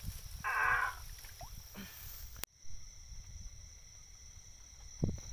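A bird's short squawk, about half a second long, as a hand grabs it in the grass. After a sudden cut, insects trill steadily and a dull thump sounds near the end.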